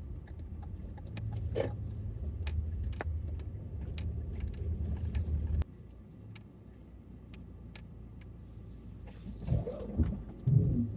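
Car engine running with a low rumble and scattered light clicks, shut off suddenly a little past halfway; a few loud thumps follow near the end.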